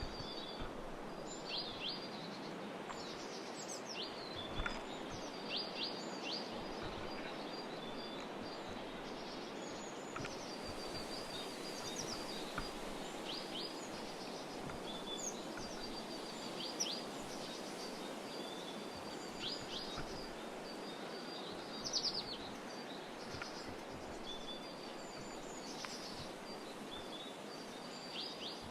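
Small songbirds chirping, with short high calls and quick down-slurred notes repeated many times, over a steady background hiss.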